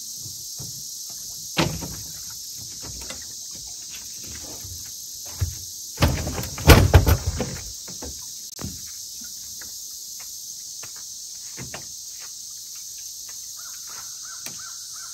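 Steady insect chorus, with scattered knocks and thumps of someone stepping about on a boat's deck and climbing off the bow onto a fallen tree. The loudest cluster of thumps comes about six to seven seconds in.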